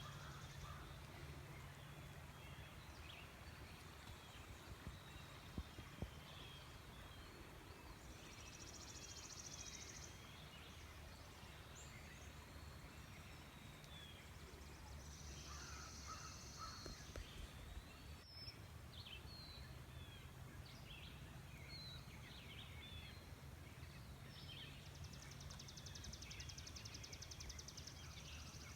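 Faint woodland ambience: scattered birds chirping, with a high buzzy trill three times, each lasting two to three seconds, over a steady low rumble.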